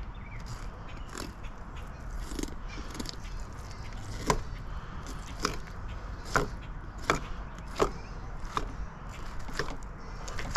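Knife working through a longnose gar's hard, scaly skin and flesh: a series of sharp crunching clicks, stronger and about one a second from about four seconds in.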